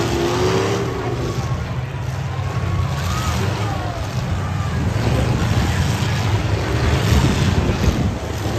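Demolition derby cars' engines revving and running while the cars ram into one another, with dull hits of metal on metal.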